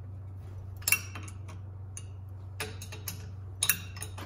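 Metal wrench clinking on the bolts of a GT3582 turbo as the turbine housing bolts are loosened: a handful of sharp, irregular metallic clicks, the loudest about a second in. A steady low hum runs underneath.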